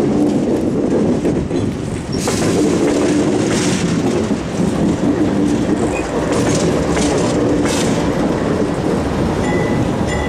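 GE C40-8 diesel-electric locomotive with a 16-cylinder GE 7FDL engine passing close by at low speed. The engine runs with a steady rumble, and the wheels click over rail joints several times as it goes past.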